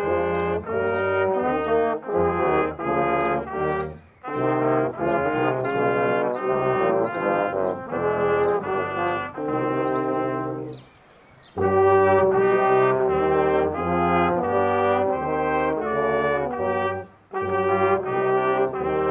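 Brass choir of trumpets, trombones and low brass playing a hymn tune in chorale style, held chords phrase by phrase with short breath breaks between lines. A longer pause a little past halfway, then the next verse begins.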